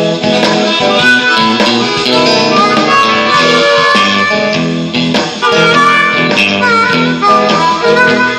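Hohner Marine Band diatonic harmonica playing a bluesy solo line with held, bending notes over guitar accompaniment.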